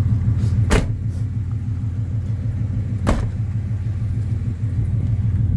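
The supercharged 5.4-litre V8 of a 2000 Ford F-150 SVT Lightning, Harley-Davidson Edition, idling with a steady low rumble; the owner says it makes no engine noises. Two sharp clicks come about a second in and again about three seconds in.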